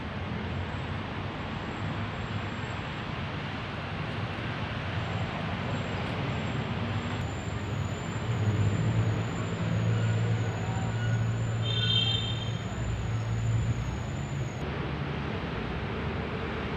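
Steady city road traffic noise, with a low vehicle engine drone that swells in the middle and a brief high-pitched squeal about twelve seconds in.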